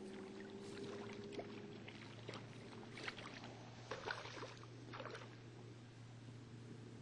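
Faint small splashes, clicks and knocks as a small largemouth bass is fought to the boat on a jerkbait, over a low steady hum.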